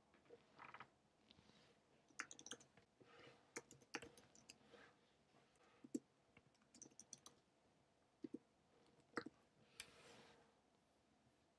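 Faint, irregular clicks of typing on a computer keyboard, coming in small clusters with short pauses between them.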